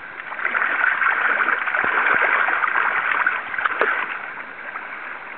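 A steelhead thrashing and splashing in shallow river water as it is scooped into a landing net, with a few sharp knocks. The splashing is loudest for about three seconds, then eases off.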